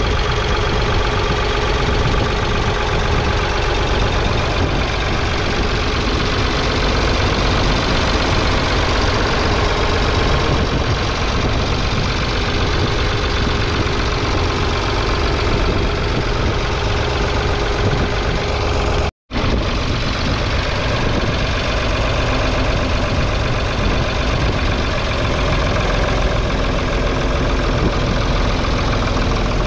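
1970 Ford 3000's 2.9-litre three-cylinder diesel engine running steadily while the tractor pulls a two-furrow mounted plough. The sound drops out for a split second about two-thirds of the way through.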